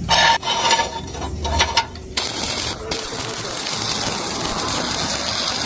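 Stick welding arc, sputtering and popping in irregular bursts, then about two seconds in settling into a steady crackling hiss.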